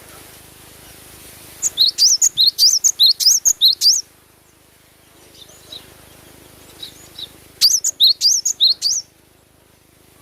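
Cinereous tit (gelatik batu) singing: two loud runs of quick, high, upslurred chirps, about five a second, each run lasting a couple of seconds, with a few faint single notes in the pause between.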